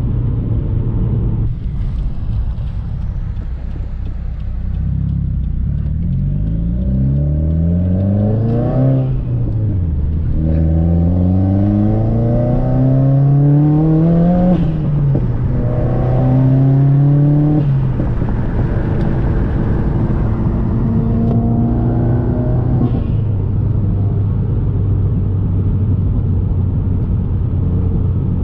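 Turbocharged Subaru WRX flat-four with a Tomei exhaust accelerating hard through the gears. The engine note climbs, drops sharply at a shift about nine seconds in, climbs again to a second shift, holds briefly, then settles to a lower steady cruise.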